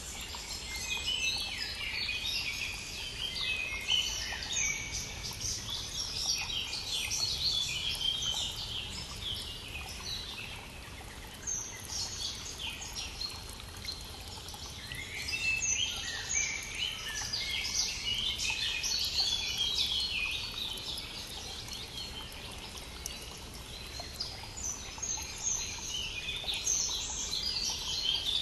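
A chorus of songbirds singing over a brook's steady running water, with a lull in the song about halfway through.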